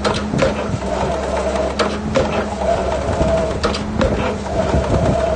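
Excavator engine running steadily while piles are driven, with pairs of sharp knocks repeating about every two seconds.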